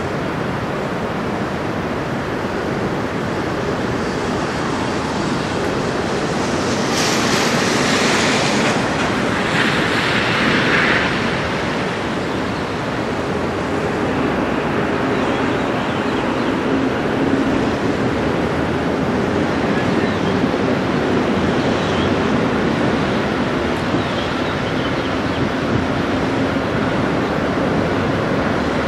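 Lake waves washing against the shore, with wind buffeting the microphone. A louder hissing rush comes about seven to eleven seconds in, and a faint low steady drone sits under it in the second half.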